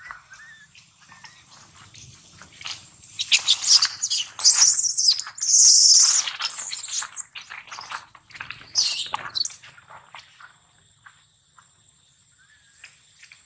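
Baby macaque's distress screams: repeated shrill shrieks in bursts as an adult macaque pins it down, loudest about halfway through and fading near the end.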